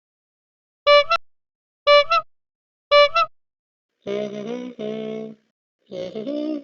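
A talking parrot: three short, loud, high-pitched calls about a second apart, then a run of lower-pitched repeated syllables imitating speech.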